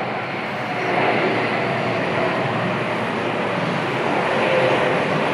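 Jet engines of a Boeing 767 airliner going past, a steady rushing roar with faint whining tones, growing slightly louder.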